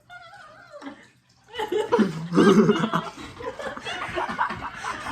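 People laughing loudly, starting about a second and a half in, after a short gliding voice sound at the start.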